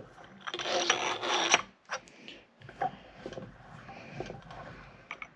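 Aluminium AN hose-end fitting on braided stainless hose being handled and undone by hand. A rasping rub lasts about a second, starting about half a second in, followed by light clicks and knocks.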